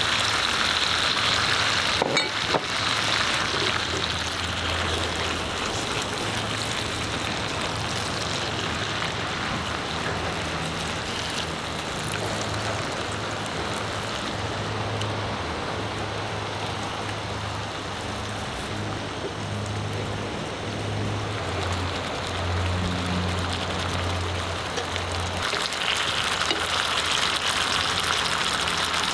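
Barramundi cubes and cherry tomatoes sizzling in a frying pan. The sizzle is loudest in the first few seconds and again near the end, with a knock about two seconds in. A low hum comes and goes through the middle.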